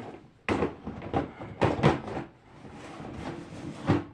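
Plastic fidget toys and their storage containers being handled and set down: a handful of sharp knocks and clatters, the loudest about half a second in and near the end.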